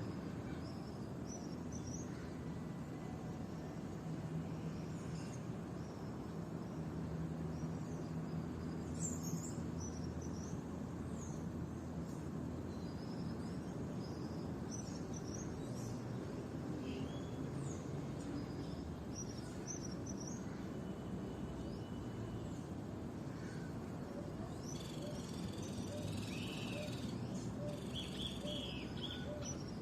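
Several small birds chirping and calling in short high notes, thickening into a busier burst of song near the end, over a steady low background rumble.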